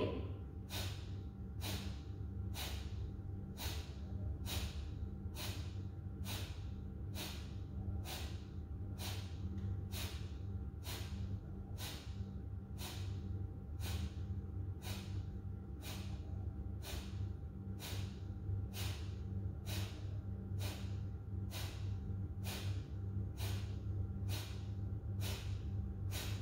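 Kapalabhati breathing: a woman's forceful nasal exhalations, short sharp puffs at about one a second in an even rhythm, with the inhalations passive and barely heard. A steady low hum runs underneath.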